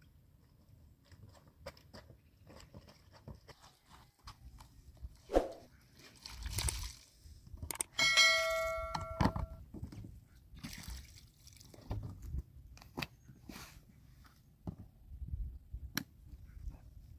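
Laundry being hand-washed in a plastic basin: scattered clicks, knocks and sloshing as wet clothes, the basin and a detergent packet are handled. About eight seconds in, a sharp strike is followed by a bell-like ring that lasts about a second and a half.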